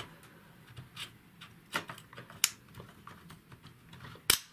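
Scattered light clicks and taps of an AR-15 upper receiver being fitted onto its lower receiver, with one sharper click near the end.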